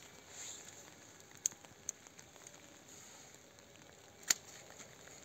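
Hand pruning shears snipping through grapevine canes: three sharp clicks, two in quick succession about a second and a half in and the loudest about four seconds in.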